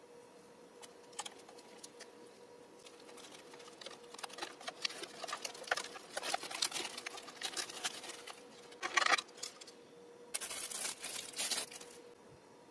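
Thin plastic lid of a takeaway soup bowl being handled and pried off: a run of crinkling clicks and crackles, a louder crackle about nine seconds in, then a longer rustle of plastic near the end.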